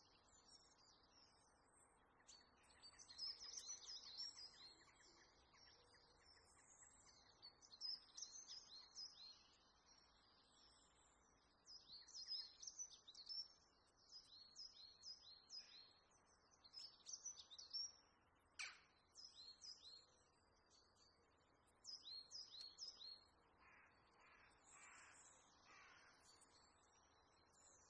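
Faint bird calls: groups of short, high, falling chirps repeating every few seconds, with a few lower, harsher calls near the end.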